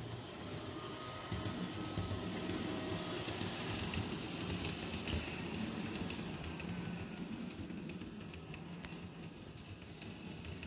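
Model train running on its track close by: a steady electric motor hum with scattered light clicks from the wheels, louder for the first few seconds, then slowly fading.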